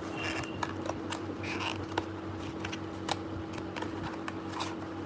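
Packaging of a concealer being handled and opened by hand: scattered small clicks and short rustles of the box and wrapping, over a steady low hum.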